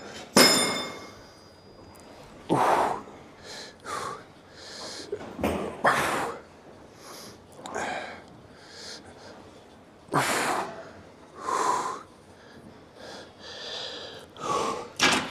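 A man's heavy, forceful breathing from weight training, with loud exhales every second or two. A sharp metallic clank of gym weights rings out about half a second in.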